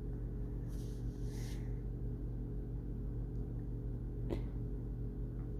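A steady low hum made of several fixed tones, with a soft hiss about a second in and a single short click a little past four seconds.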